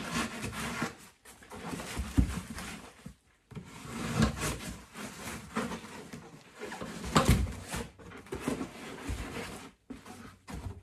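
A knife is drawn through foil-faced fiberglass duct board in several scraping strokes. A few dull knocks come as the cut pieces are shifted on a wooden workbench.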